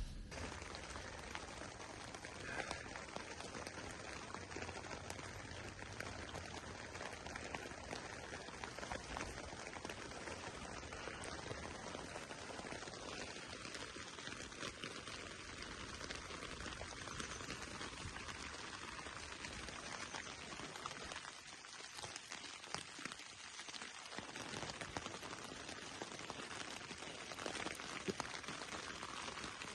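Rain falling: a steady patter of many small drops.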